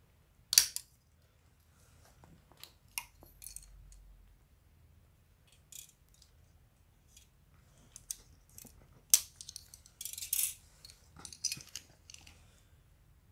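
Plastic model kit parts being cut from the sprue and handled: scattered sharp plastic clicks and snips, the loudest about half a second in and about nine seconds in, with a brief rustle around ten seconds in.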